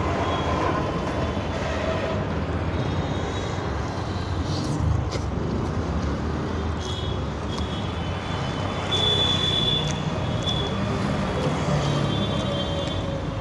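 Steady road traffic noise, a continuous hum of passing vehicles, with a few faint thin high tones partway through.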